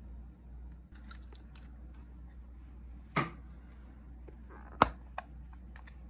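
Light ticks and taps of a clear plastic case of nail tips being handled, with two sharp clacks about three and five seconds in, the second the loudest.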